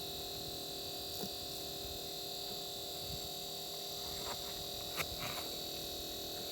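Steady high-pitched electronic whine with a lower hum beneath it, broken by a few faint clicks, the sharpest about five seconds in.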